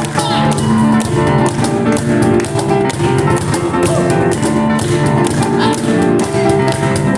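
Live instrumental duo music: a Kawai acoustic piano playing fast, busy lines over a cajón driving a steady beat of sharp slaps and knocks.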